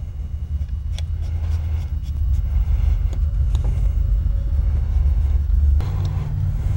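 A steady low rumble, with a few faint small clicks of a screwdriver working in the pin that holds the locks of a sidelock shotgun.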